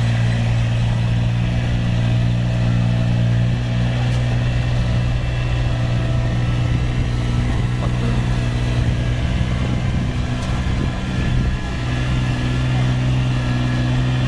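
Rice transplanting machine's engine running steadily, its note wavering for a few seconds in the middle before settling again.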